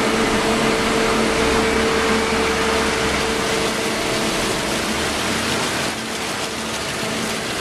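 Winery Archimedean separator ("coffin") running, its drum turning with a steady machine hum, while red wine just run off the fermenting skins gushes out of it into a steel hopper.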